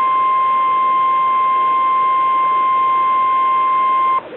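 Emergency alert attention signal: a single steady high-pitched tone of the kind used by NOAA Weather Radio for a warning alarm. It sounds without a break over faint hiss and cuts off abruptly near the end, announcing a severe thunderstorm warning.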